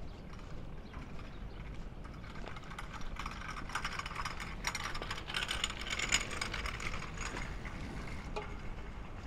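Rapid mechanical clicking that swells to its loudest about six seconds in and then fades, over a steady low rumble.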